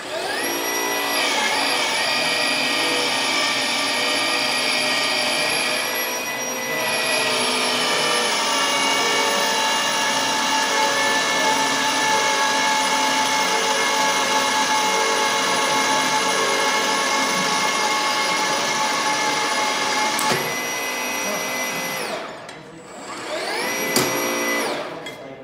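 Milwaukee MX Fuel battery-powered pipe threading machine's motor spinning up and running with a steady high whine, dipping briefly about six seconds in. It shuts off near the end, spins up once more for a couple of seconds with a click, and stops.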